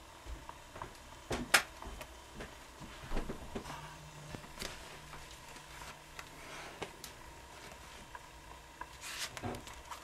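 Playing cards being handled: scattered soft clicks and rustles of the cards, with one sharp snap about a second and a half in.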